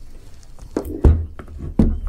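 A switched-off belt sander being handled and set down on a wooden workbench: about four knocks and thuds, the loudest about a second in.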